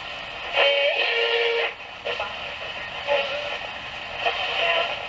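Music with a singing voice coming from an AM broadcast through the restored Pilot tube radio's speaker. It sounds thin, with almost no bass, as AM reception through a small set does.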